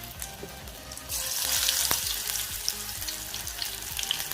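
Masala-coated soya chunks deep-frying in a kadai of hot oil, a steady crackling sizzle that gets much louder about a second in, as a fresh batch goes into the oil.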